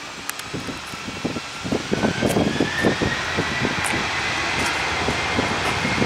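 Boeing 737 jet engines spooling up on the takeoff roll. A whine climbs steadily in pitch while a rough, crackling engine rumble builds and gets louder from about two seconds in.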